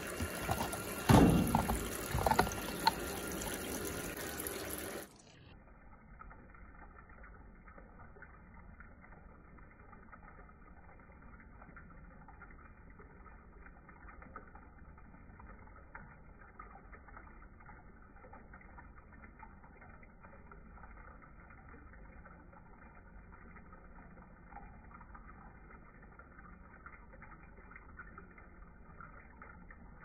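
Washing machine's drum filling with water for the rinse cycle, with a few knocks about a second or two in. After about five seconds the sound drops suddenly to a faint, muffled, steady hiss of water.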